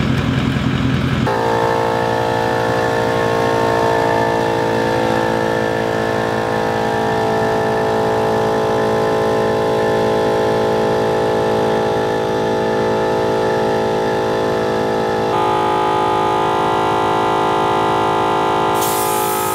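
Adventure Kings Twin Thumper Max twin-cylinder 12 V air compressor switching on about a second in and then running steadily with a loud motor whine, pumping up a completely flat tyre. Its pitch shifts near the end.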